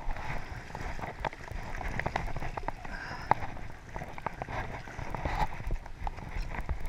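Shallow, fast river water splashing and rippling close by, with many short, sharp splashes and knocks scattered through it.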